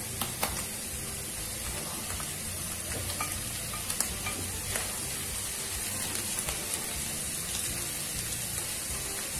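Mushrooms sizzling steadily in butter in a nonstick frying pan while grated mozzarella is tipped in and spread with a plastic slotted spatula, with a few light taps and scrapes.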